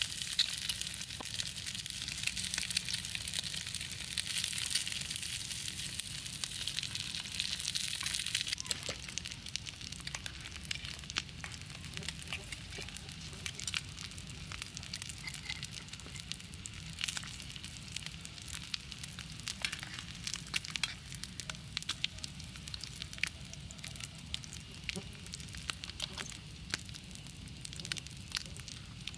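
Eggs and sausages frying in a small pan over an open wood fire, a steady sizzle. About eight seconds in the sizzle drops to a quieter level, and scattered crackles from the fire run through it.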